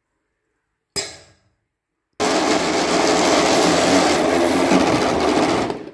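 Electric blender running for about three and a half seconds, blending cooked-down lemons, orange and herbs; it starts and stops abruptly. A single sharp click about a second in, before the motor starts.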